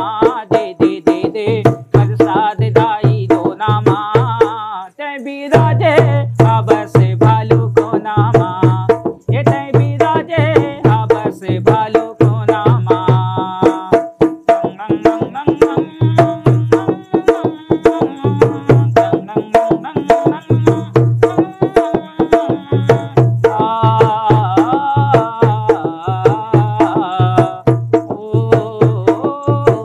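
A man singing a Chhattisgarhi jas geet (devotional folk song) in a clipped, repeating style meant to imitate an echo, accompanying himself on a dholak. The drum keeps a steady beat of deep bass strokes, about two a second, with sharp hand slaps between; voice and drum stop briefly about five seconds in, then carry on.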